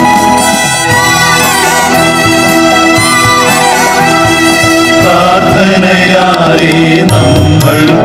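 Background music: instruments playing a melody, with a wavering melody line that comes in about five seconds in.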